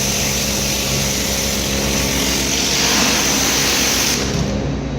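Cold high-pressure washer spraying plain water onto a greasy concrete floor: a steady hiss of the jet over the machine's engine running. The spray cuts off about four seconds in and the engine keeps running. The plain cold water is not cutting through the grease.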